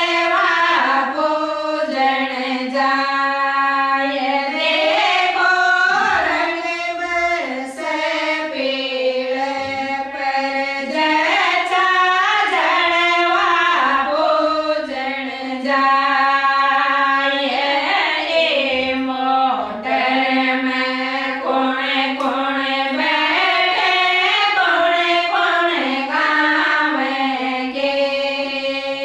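A group of women singing a traditional Rajasthani folk song for the jalwa (well-worship) ceremony, in unison, with long held notes in phrases of a few seconds.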